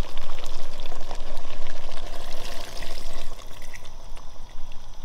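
Liquid pouring and splashing as the contents of a wooden mortar are tipped into a pot of simmering soup. The watery sound is loudest over the first three seconds and then eases off.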